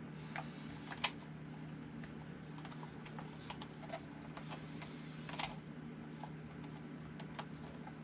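Scattered light plastic clicks and taps as a front wheel and tyre are handled and fitted onto a 1/10 RC buggy's front axle, the loudest about a second in.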